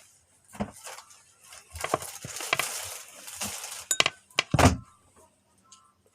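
A series of knocks and clinks with a stretch of rustling, as objects are handled and set down on a hard surface. The loudest, a heavy thump, comes about four and a half seconds in.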